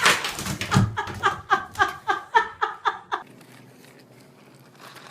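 A dog yipping in a quick run of short, high calls, about four a second, stopping about three seconds in.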